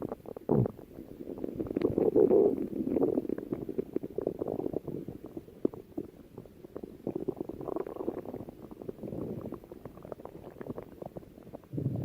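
A person's stomach growling in an uneven, continuous run, loudest about two to three seconds in, with a short low downward sweep about half a second in.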